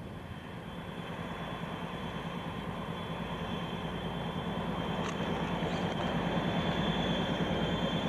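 Two-stroke V12 diesel engines of ST44 (M62-type) locomotives running under load with a rapid rhythmic beat and a steady high whine, growing steadily louder as the train approaches.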